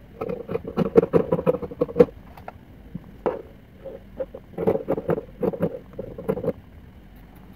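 Scissors snipping through folded paper interfacing in two runs of quick cuts, stopping near the end.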